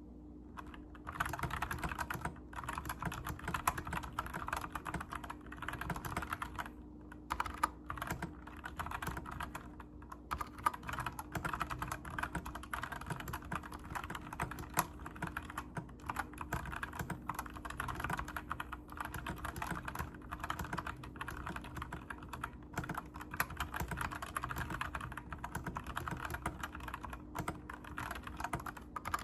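Typing on a custom 65% mechanical keyboard: a rapid, continuous stream of key clacks, broken by a few brief pauses.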